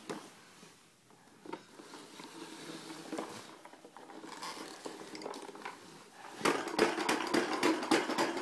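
Plastic Little Tikes toy lawn mower rattling and clicking as it is pushed, ending in a fast run of clicks in the last two seconds.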